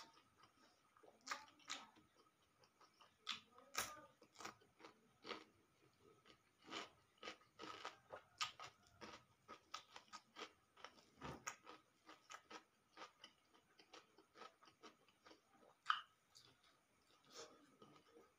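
A person chewing with the mouth close to the microphone, eating raw cucumber and fried omelette by hand, with many small irregular crunches.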